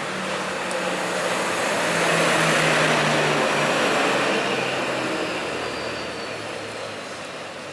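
A motor vehicle passing close by on the road: a rushing noise builds to a peak about three seconds in and then fades away, while its low engine hum drops steadily in pitch as it goes past.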